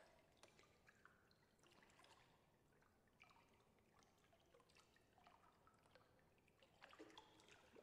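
Near silence, with faint drips and small sounds of bathwater, a few a little louder near the end.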